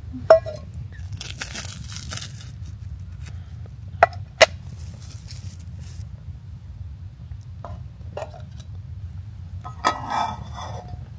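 Camp tableware being handled, with a few sharp clinks and two short stretches of crinkling, and a burst of clattering near the end.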